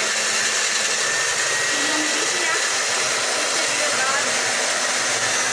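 Handheld round-knife electric cloth cutter running steadily while cutting strips of fabric, a continuous even motor noise.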